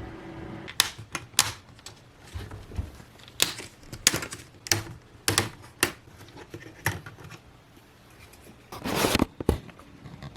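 An Acer laptop's cooling fan hum cuts off just after the start as the laptop shuts down. Then comes an irregular string of sharp clicks and knocks as the plastic laptop is handled, and a short scraping rustle about nine seconds in.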